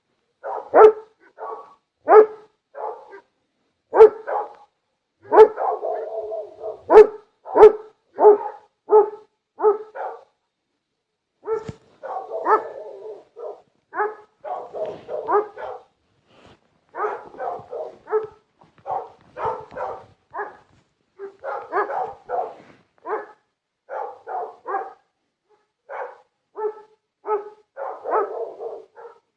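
Dogs barking over and over: short, sharp barks at an uneven pace, often several in quick succession, with a few pauses of a second or two between runs.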